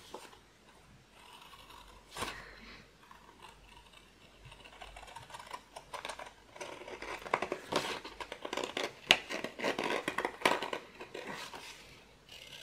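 Large scissors cutting through paper: a single snip about two seconds in, then a fast run of cuts from about halfway through that stops near the end.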